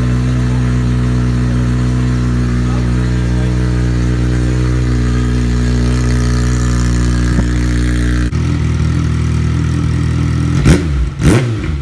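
Kawasaki ZX-6R inline-four motorcycle engine running with its exhaust pipe removed: a loud, steady idle that changes abruptly about eight seconds in, followed by two quick revs near the end.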